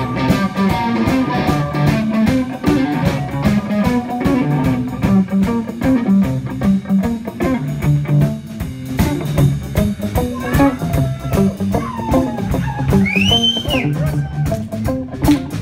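Live blues band playing: electric guitar, electric bass and drum kit, recorded on a phone. The guitar bends a high note up and back down about 13 seconds in.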